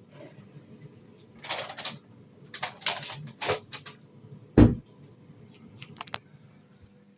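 Clicks and clatter from handling a Samsung washing machine, in short irregular bursts, with one heavy thump about four and a half seconds in.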